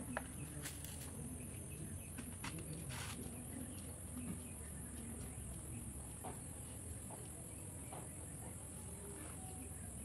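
Steady, high-pitched drone of an insect chorus, with a few short sharp clicks and scrapes in the first three seconds.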